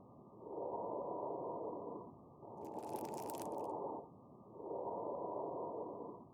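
Breath sounds recorded through a stethoscope: a muffled rushing of air that swells and fades with each breath in and out, about three breath phases.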